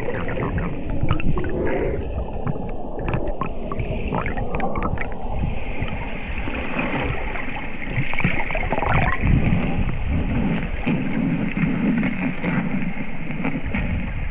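Muffled underwater rush of a waterfall pouring into its pool, heard with the microphone submerged, with bubbles gurgling and a scatter of sharp clicks in the first few seconds.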